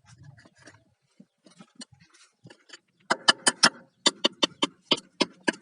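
Light handling noises, then from about three seconds in a quick run of sharp clicks, about four to five a second, from a screwdriver being worked on the pipe fitting.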